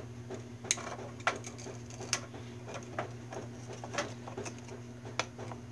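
Oyster shells clacking against each other and a metal baking tray as a hand shifts them: a handful of sharp clicks, roughly one a second, over a steady low hum.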